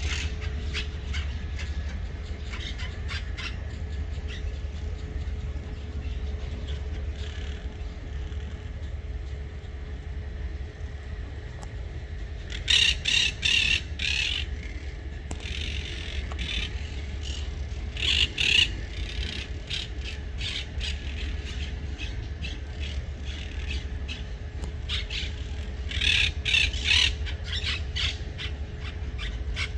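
Birds calling: scattered short calls, with louder clusters of rapid calls about 13, 18 and 26 seconds in.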